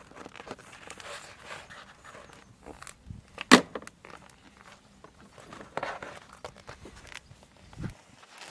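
Handling noise as a sheet of foam insulation is laid onto a plastic engine cover: scattered rustling and light knocks, with one sharp knock about three and a half seconds in and smaller ones later.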